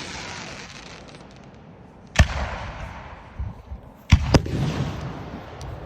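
Aerial fireworks shells bursting: a sharp bang about two seconds in, then two bangs in quick succession about four seconds in, each followed by a fading crackling hiss, with a few smaller pops between. The crackle of an earlier burst is still fading at the start.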